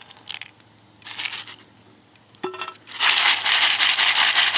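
Parched corn kernels tipped from a metal pan into a plastic bowl: a dense, rattling patter of many small hard hits. Two brief rattles come in the first second and a half, then a single clink with a short ring, then a louder, longer pour starting about three seconds in.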